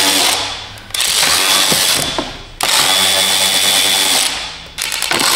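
Cordless electric ratchet motor whirring in four short runs with brief pauses between them, backing fasteners out of the air filter housing.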